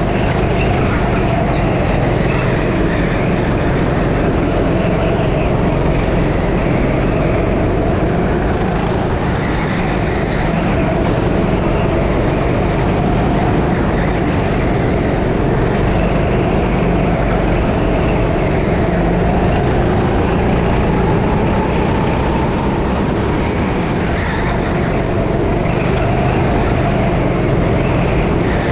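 6.5 hp racing go-kart engine running at race pace, its pitch rising and falling over a few seconds at a time as the kart speeds up and slows through the lap.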